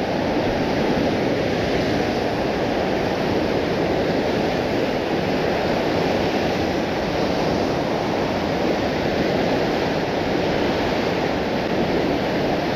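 River rapids rushing: a steady, loud roar of churning white water.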